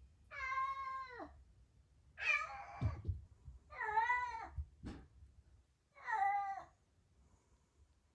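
Domestic cat meowing four times, each meow short and falling at its end, with pauses of a second or so between them. A brief soft knock comes between the third and fourth meows.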